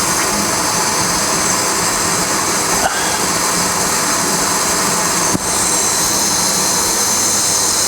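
End mill sharpening machine running steadily, its grinding wheel giving a steady high hiss, with two brief ticks about three and five and a half seconds in.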